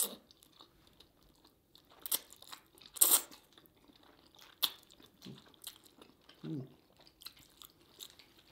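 Close-up eating sounds: food being bitten, crunched and chewed, with scattered sharp clicks and taps, the loudest about three seconds in.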